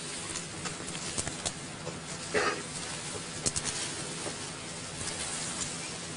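Dry leaves, twigs and bamboo crackling and rustling as people push through dense dry undergrowth, with scattered sharp snaps. A short pitched sound comes about two and a half seconds in.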